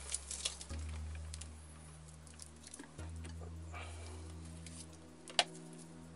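Light clicks and taps from handling small parts or tools, with one sharper click about five seconds in, over soft background music of held low notes.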